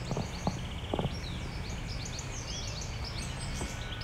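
Several songbirds chirping and singing, including a brief rapid trill early on, over a steady low rumble, with a few soft knocks.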